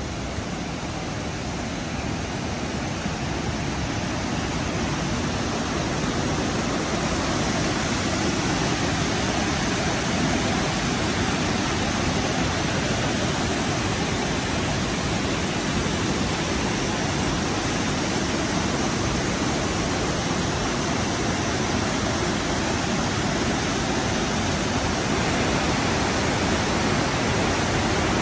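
A tall, multi-tiered waterfall over rock rushing steadily, a dense unbroken roar of falling water. It grows louder over the first several seconds, then holds even.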